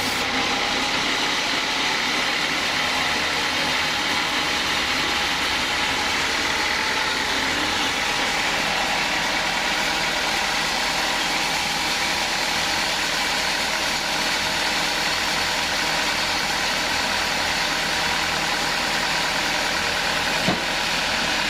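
Engine-driven sawmill saw running steadily: a continuous machine drone with no let-up, and a single sharp click near the end.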